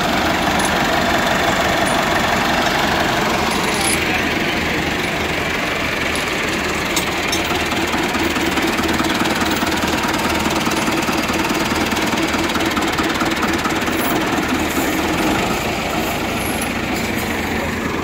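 Tractor diesel engines running steadily at close range, from a Massey Ferguson 385 4x4 and a New Holland 70-56, with an even, low, rhythmic diesel clatter.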